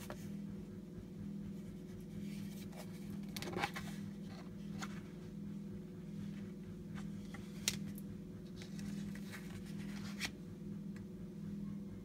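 Handling noise as a cardboard lighter gift box is opened and the lighter taken out: rubbing and rustling of card and fingers, with three sharp taps spread through, over a steady low hum.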